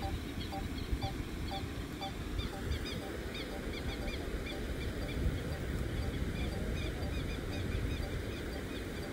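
Birds calling over a steady rushing noise: many short rising chirps, and a repeated two-note call about twice a second that fades partway through and comes back near the end.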